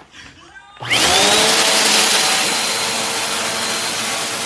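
Vacuum cleaner switched on about a second in, its motor whining up to speed, then running steadily with a loud rush of air.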